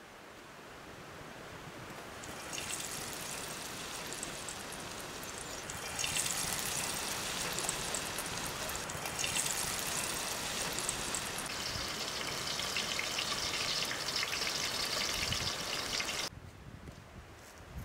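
Sliced onions sizzling as they fry in hot oil in a clay pot: a fine crackling hiss that builds up, grows louder about six seconds in, and stops abruptly near the end.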